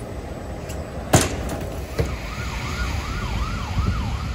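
Emergency vehicle siren going rapidly up and down in pitch, about three sweeps a second, starting about two seconds in, over a steady low rumble. A sharp knock about a second in is the loudest sound.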